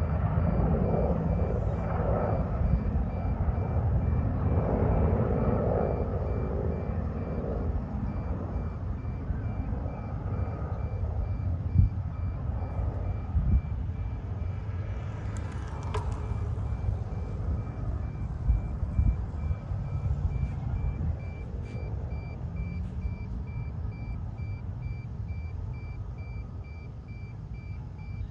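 A vehicle's reversing alarm beeping in a steady, rapid series over a continuous low rumble.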